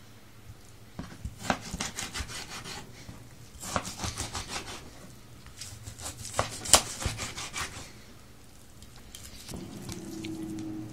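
Kitchen knife slicing through raw hake fillet on a wooden cutting board: three runs of quick strokes, the blade knocking on the wood.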